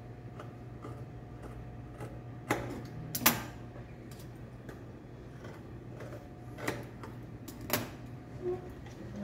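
Juki industrial sewing machine stitching slowly: light ticking over the steady hum of its motor, with a few sharper clacks.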